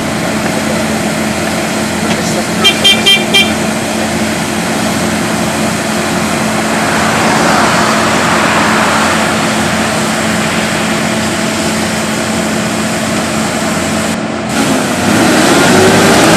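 Claas Lexion 480 combine harvester running steadily under harvesting load, a constant engine drone with machinery hum. About three seconds in come four quick high-pitched beeps, and near the end the engine note rises.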